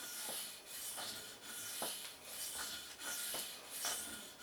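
Knife blade stroked back and forth across the 1000-grit side of a wet whetstone: a repeated scraping hiss, roughly six strokes in a steady rhythm. The steel is the VG10 of a Spyderco Delica 4.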